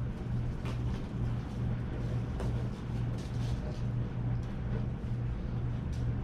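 A steady low mechanical hum runs under faint scattered clicks and rustles of people eating a meal by hand.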